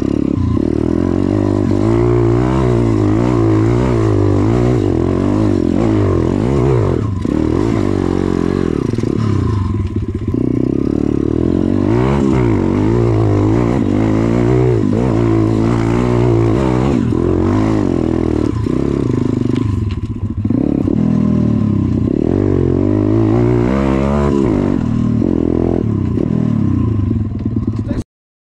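Dirt bike's single-cylinder engine, heard from the rider's seat, revving up and down over and over as it is ridden along a rough forest trail. The sound cuts off suddenly near the end.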